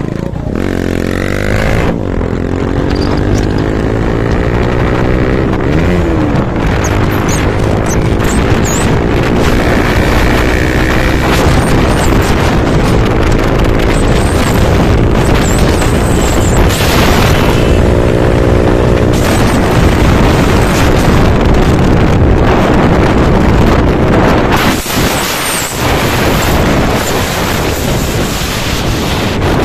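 Motorcycle engine running at road speed, its pitch climbing over the first few seconds as it accelerates, then holding fairly steady, over continuous wind rush on the microphone.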